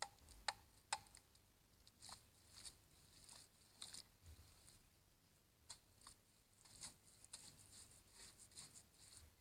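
Near silence with faint, irregular clicks and crackles.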